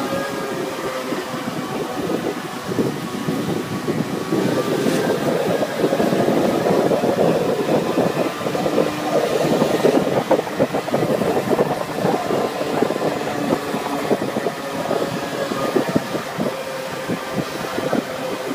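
Moped engine running steadily under way, heard from on board, with rushing wind and road noise that grows louder in the middle.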